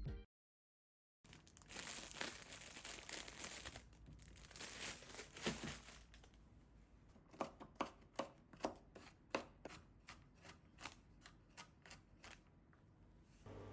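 Kitchen food preparation: a few seconds of crinkling and rustling, then a knife chopping on a cutting board in a run of irregular taps, about two a second.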